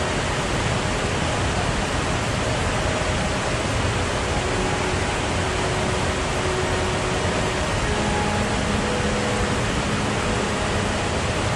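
Shallow rocky stream rushing over boulders: a steady wash of running water.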